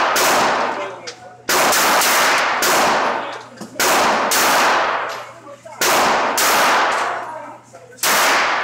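.22 LR pistol firing single shots about every two seconds. Each crack is followed by a long echo off the walls of an indoor range.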